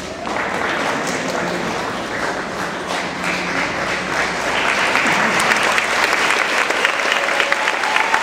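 Audience applauding, with the clapping growing louder about four seconds in.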